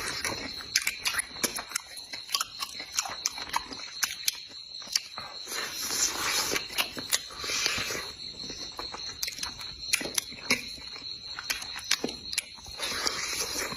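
Close-miked chewing of soft pork trotter: wet mouth smacks and sharp clicks coming irregularly, with a few longer noisy stretches.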